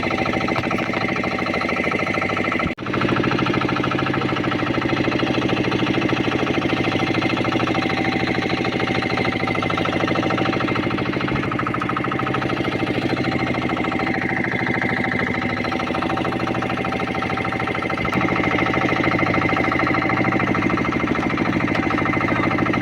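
Small fishing boat's engine running steadily with a fast, even knock. It dips sharply for an instant about three seconds in and runs slightly louder from about eighteen seconds.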